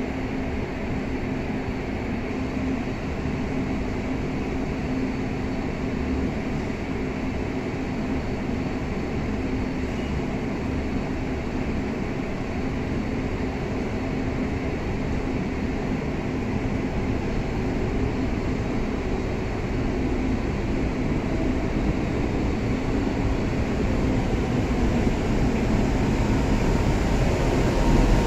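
Steady rumble of an MTR Tsuen Wan line M-train on the track, slowly growing louder over the last several seconds as the train approaches the station.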